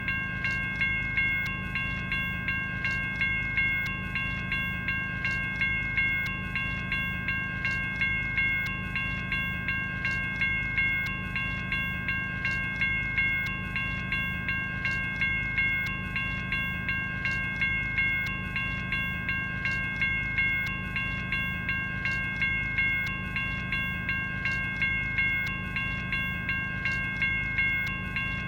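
General Signals Type 1 electronic railroad crossing bell (e-bell) ringing continuously. It sounds its synthesized bell strike in an even rhythm of about one a second, with a ringing tone that hangs between strikes.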